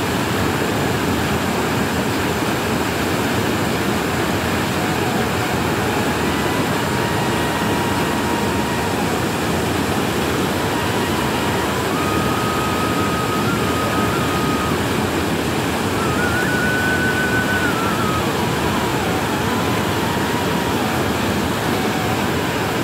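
Steady rushing of a swollen, muddy river running in flood.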